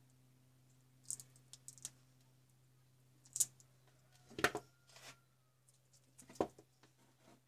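Scattered clicks and taps of hand tools being handled on a workbench, with a sharp snip-like click from diagonal side cutters about four and a half seconds in and another knock about two seconds later. A faint steady low hum runs underneath.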